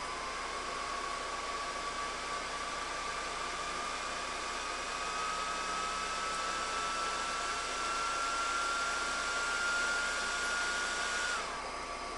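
CNC 3018 laser module running at full power: a steady fan hiss with a thin whine that slowly rises in pitch. Near the end the whine drops and the hiss falls away as the laser switches off.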